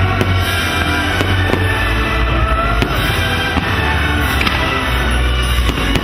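Fireworks going off, several sharp bangs, over loud music with a heavy steady bass.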